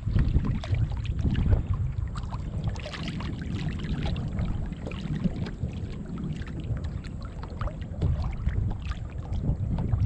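Water splashing and lapping at the side of a kayak, stirred by a redfish held in the water alongside. Under it, wind rumbles on the microphone.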